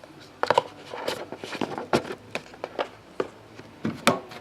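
Hands handling trading cards and their packaging: a string of light, irregular clicks and taps.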